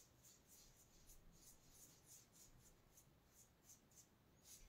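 Faint, quick swishes of a paintbrush stroking chalk paint onto a wall, about four strokes a second.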